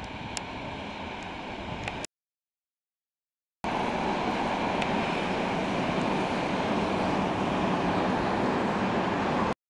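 ST43 diesel locomotive and its freight wagons passing, a steady rumbling noise of engine and wheels. The sound drops out to dead silence for about a second and a half about two seconds in, then comes back louder.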